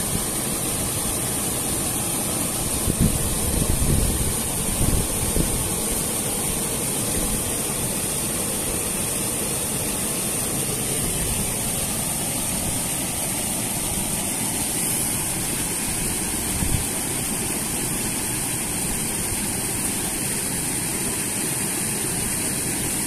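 Steady rush of river water spilling over a small concrete weir, with a few low bumps about three to five seconds in.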